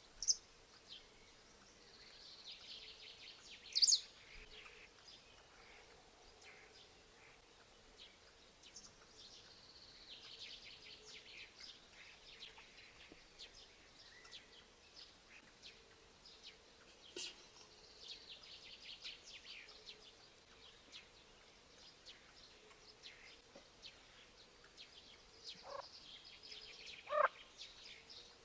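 Birds singing and calling in a morning outdoor soundscape: scattered high chirps and rapid trills, with one louder, sharp call about four seconds in. A few lower, sweeping calls come near the end, over a faint steady background hiss.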